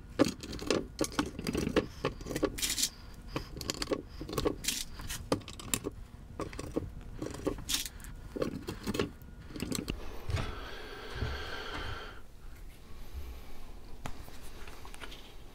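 Small metal Kreg pocket-hole screws (1¼-inch) clinking and rattling as they are handled by hand, in a string of quick light clicks, with a short rustling sound about ten seconds in.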